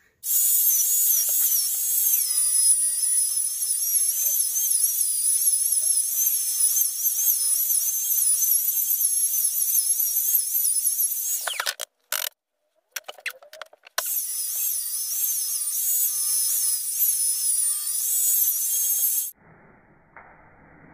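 Electric wood router running and cutting into the back of a thick wooden board, a loud high whine whose pitch wavers and dips as the bit takes the wood. About twelve seconds in it stops, with a couple of short bursts, then runs again and cuts off near the end.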